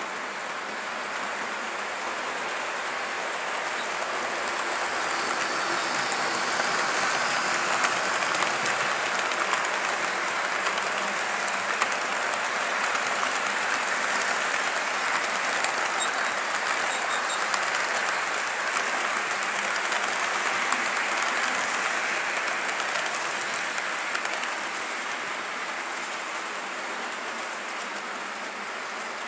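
OO/HO scale model freight train rolling past on the layout's track: a steady rushing rattle of wheels on rail, with a few faint clicks, that swells as the train nears and fades toward the end.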